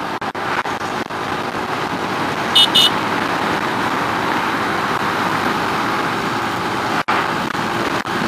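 Steady wind and road rush from a Keeway RKS 100cc motorcycle riding along a highway, with two short horn beeps about two and a half seconds in. The sound drops out for a moment about seven seconds in.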